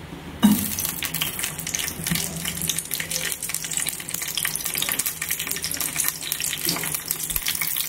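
Whole green chillies frying in hot oil in a kadai: a sudden sizzle as they drop in about half a second in, then a steady dense crackle.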